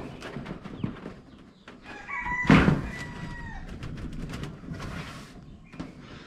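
A rooster crows once, about two seconds in: one long held call that drops in pitch at the end. A loud, sharp knock comes just as it starts, with scattered lighter clicks and knocks around it and a short hiss near the end.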